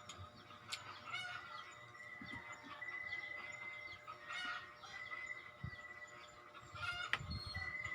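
Birds calling in the background, with repeated short high calls. There is a sharp click about a second in and a louder one near the end.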